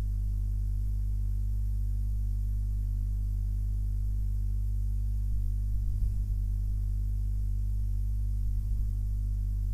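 Steady low electrical hum in the recording, unchanging throughout, with a couple of faint low bumps about two-thirds of the way in and near the end.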